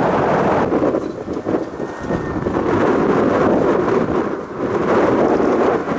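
Strong gusty wind buffeting the microphone, mixed with the rising engine noise of a jet airliner approaching to land, a faint whine showing about two seconds in.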